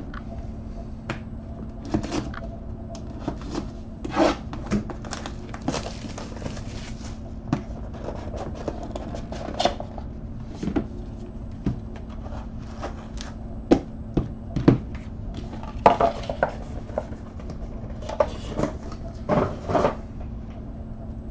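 Trading cards, plastic card holders and a small card box being handled on a table mat: scattered clicks, taps and short rubbing sounds. A steady low hum runs underneath.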